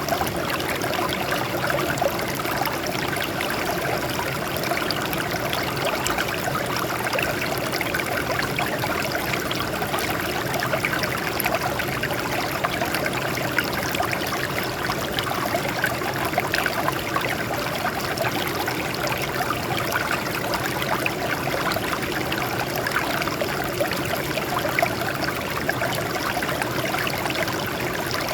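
Water flowing over rocks, a steady splashing and trickling with no breaks.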